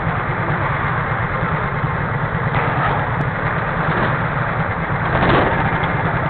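Go-kart engines idling, a steady low drone, with a brief louder swell about five seconds in.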